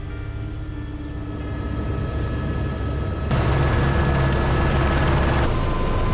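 Helicopter in flight, heard from inside the cabin: rotor and engine noise with a steady high whine. It jumps suddenly louder about three seconds in.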